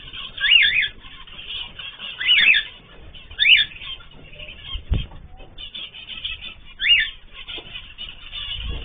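Ornamental cage birds calling: steady chatter with four loud, short calls that rise and fall in pitch, spread across the stretch. A single dull thump comes about five seconds in.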